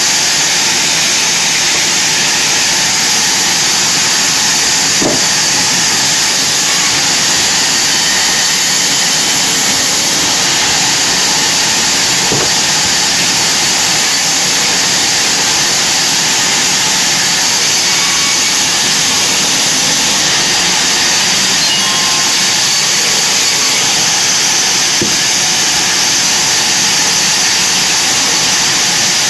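Large vertical sawmill band saw running and ripping a wide wooden slab, a steady, loud, even rushing noise with no pauses.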